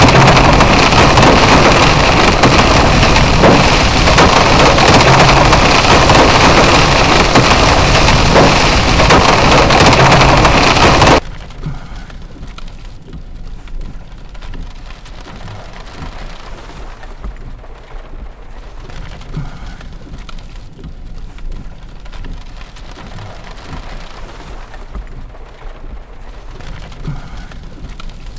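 Strong rear-flank downdraft wind gusts blasting the microphone as a loud, steady rush. About eleven seconds in it cuts off suddenly to a much quieter patter of rain on a car, heard from inside the cabin.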